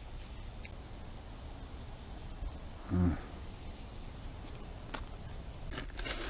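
Quiet outdoor background with a faint steady high hiss, broken about three seconds in by one short, low voice-like sound, a grunt or bark lasting about a third of a second.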